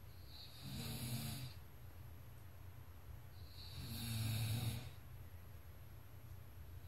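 A sleeping person snoring: two long snores about three seconds apart, each a low rattle with a high hiss.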